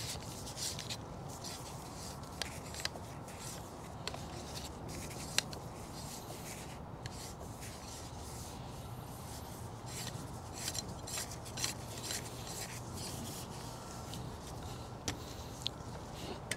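Quiet scraping, rubbing and scattered clicks from working a grease gun and hose on a truck's chassis grease fittings, over a low steady hum.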